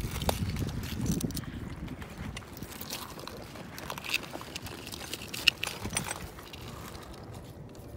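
Footsteps crunching over a shoreline of pebbles, broken glass and pottery shards, with small clinks of shards knocking together and one sharp clink about five and a half seconds in.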